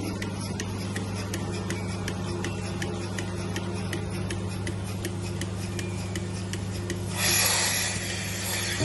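Dairy milking machine running: a steady low hum from the vacuum system with a regular mechanical ticking from the pulsators. A rush of hissing air comes in near the end.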